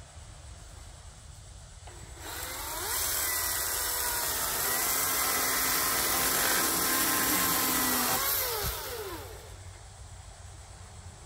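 Milwaukee M18 FUEL 14-inch cordless chainsaw with a brushless electric motor: it spins up with a rising whine about two seconds in, runs steadily while sawing into a fallen tree limb, and winds down with a falling whine near the end.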